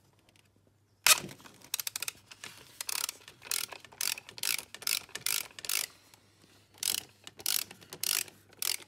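Hand socket ratchet clicking in repeated short bursts as it is worked back and forth to loosen the intake manifold nuts. It starts with a sharp click about a second in.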